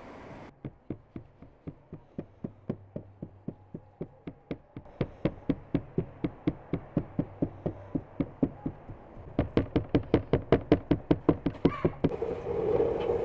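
A thin wooden stick jabbed again and again through rolled flatbread dough, knocking on the wooden peel beneath as the dough is docked with holes. The knocks come steadily about four a second, then turn louder and quicker for the last few seconds before stopping.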